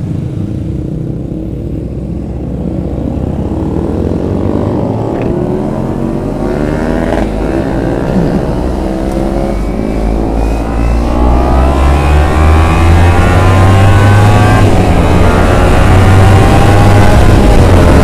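Kawasaki Ninja 250 FI parallel-twin engine accelerating, its pitch climbing, growing louder over the last several seconds.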